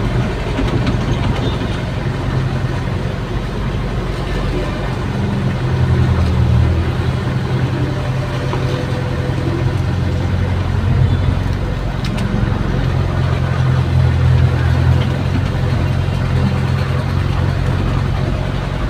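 Hydraulic excavator's diesel engine running, heard from inside the cab, its note swelling louder in stretches as the boom and bucket dig and swing a load of wet soil.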